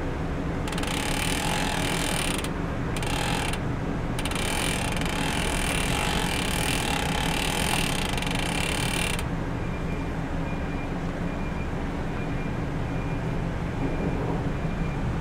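Bicycle drivetrain turning: the chain runs over Rotor Q-Rings chainrings and past the SRAM Rival AXS front derailleur. A hiss stops twice briefly and ends about nine seconds in, over a steady low rumble.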